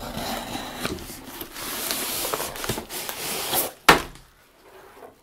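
A cardboard shipping box being opened: packing tape cut and torn with a blade, and cardboard flaps scraping and rustling. A single sharp thump comes near four seconds in, then it goes fairly quiet.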